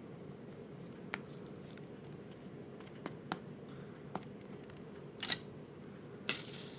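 Trading cards being handled by hand: a few light clicks and ticks, then two brief rustling swipes of card stock near the end, over a low steady room hum.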